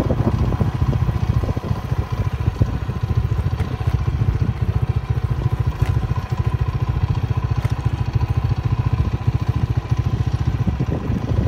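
Motorcycle engine running steadily while riding along a road, a fast even beat of engine pulses.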